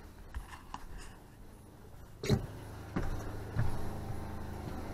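A few light steps, then a single knock about two seconds in. After that comes the steady low hum of the camper van's fresh-water pump running, with the lines still taking in air as the water heater fills.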